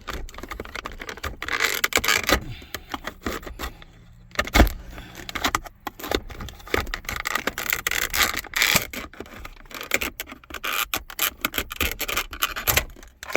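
Old foam-and-plastic cup holder console being pried out of its seat with a flathead screwdriver: steady scraping and rubbing with many sharp clicks and cracks as it breaks free, and one louder knock about four and a half seconds in.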